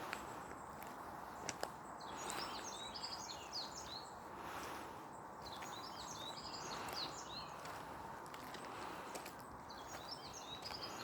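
A songbird singing bouts of quick, high chirping phrases, repeated every three to four seconds, over a steady background hiss of outdoor noise.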